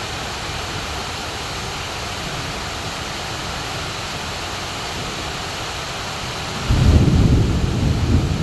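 Heavy rain pouring steadily onto leafy trees. About two-thirds of the way in, a loud low rumble of thunder breaks in suddenly and keeps rolling.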